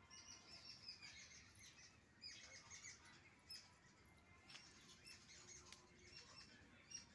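Faint chirping and twittering of small songbirds: many short, high notes that overlap and repeat throughout, some of them gliding downward.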